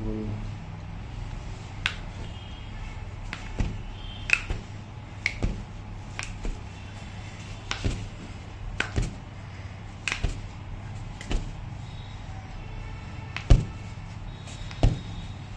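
Irregular sharp clicks and knocks, roughly one a second, from the hands-on work of a chiropractic treatment session. The loudest knock comes near the end. A steady low hum runs underneath.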